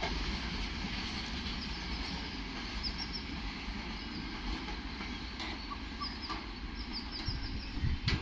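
Low rumble of a goods train's last wagons and brake van rolling away, easing off, with birds chirping now and then.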